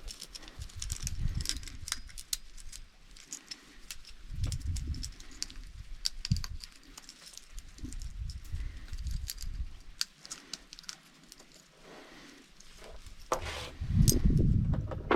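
Hand cleaning of a chainsaw: scattered clicks, taps and scrapes of the saw's parts and tools being handled, with a louder stretch of handling noise near the end.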